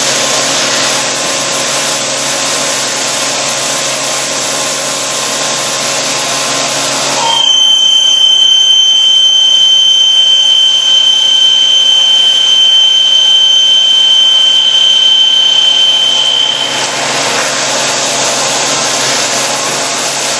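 A 40 mm drill on a CNC drilling machine cutting a steel tubesheet at 1925 rpm with flood coolant: a steady hiss of spraying coolant and cutting. From about seven seconds in until about seventeen it grows louder, with a steady high-pitched whine as the drill cuts.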